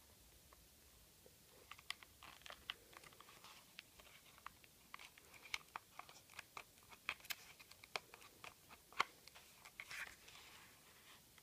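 Faint paper crinkling and many small, irregular clicks as a homemade paper model handgun is handled, with one sharper click about nine seconds in.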